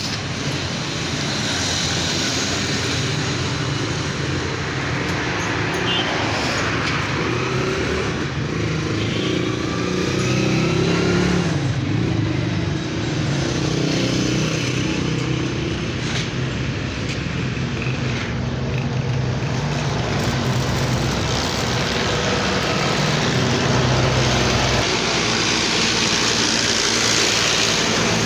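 An engine running steadily, its pitch shifting slowly, over a haze of road traffic noise.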